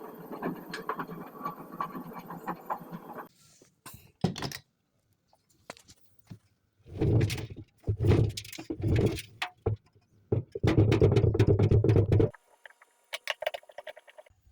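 Sharp front-loading washing machine drum rotating in several short bursts, rumbling and rattling with many clicks, the sign of a damaged drum bearing. Fainter clinking follows near the end.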